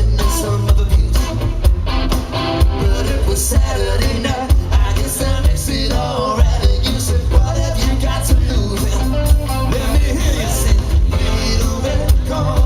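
Live band playing a pop-rock song, with drums, strong bass and singing.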